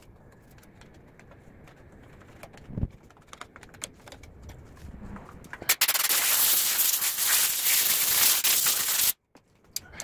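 Compressed-air blow gun blasting a loud, steady hiss at a small engine for about three seconds, starting a little past halfway and cutting off suddenly. Before it, a few light metallic clinks of tools and parts being handled.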